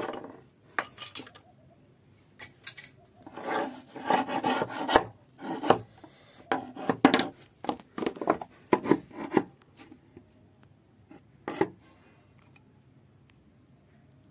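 Steel chisel scraping and prying at a carved ornament on a wooden gate, working it loose: a series of short, irregular scrapes and knocks in bunches, ending about two seconds before the close.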